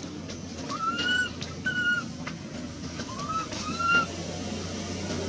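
Baby long-tailed macaque crying: four short, high-pitched cries, each rising then dipping slightly, in two pairs about two seconds apart.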